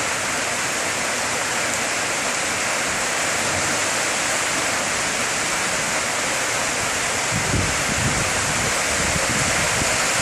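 Heavy tropical downpour: a dense, steady hiss of rain. In the last few seconds, gusts of wind buffet the microphone as the rain starts to blow in.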